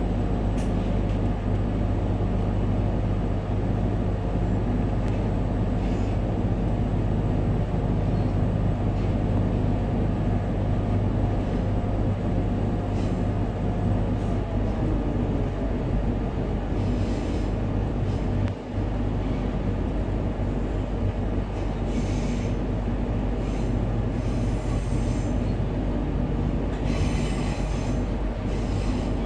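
Inside the carriage of a Queensland Rail electric multiple unit running along the line: a steady low rumble and hum from the motors and wheels on the rails. Several brief bursts of higher-pitched wheel noise come in the second half.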